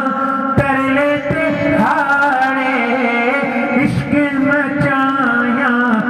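Man singing a Punjabi naat, solo, his voice gliding through ornamented melodic runs over a steady low drone.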